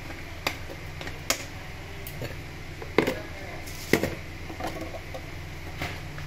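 Kitchen clatter: a handful of sharp knocks and clicks as plastic spice containers are handled, the loudest two about three and four seconds in, over a steady low hum.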